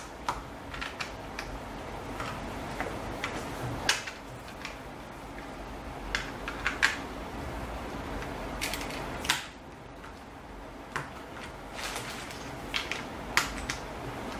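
Plastic LEGO bricks clicking and tapping as pieces are handled and pressed onto a baseplate: scattered, irregular sharp clicks.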